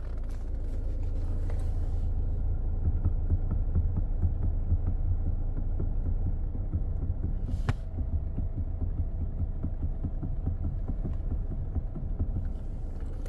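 Mazda CX-5 steering column knocking as the wheel is worked, over the steady hum of the idling engine, with one sharp click about eight seconds in. The mechanic traces the knock to a dry intermediate shaft (steering coupling) that needs lubricating.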